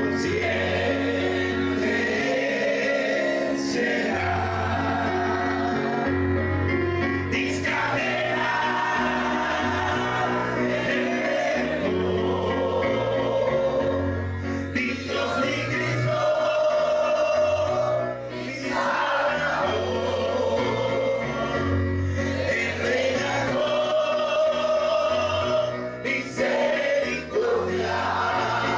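A large group of men singing a song together in chorus, over an accompaniment of held low bass notes that change every second or two.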